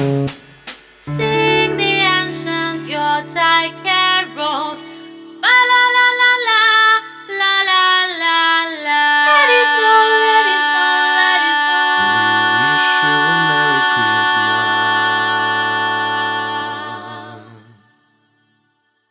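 The ending of a soul-style band arrangement: a few drum hits, then singing over sustained chords, and a final held chord that dies away about 17 seconds in, leaving silence.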